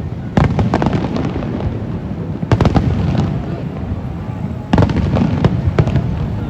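Fireworks display: three loud bursts about two seconds apart, each followed by a spray of sharp crackles over a steady low rumble.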